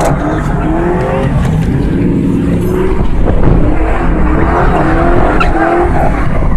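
Car spinning donuts: the engine revs hard in repeated short rising sweeps over the squeal and scrub of spinning tyres.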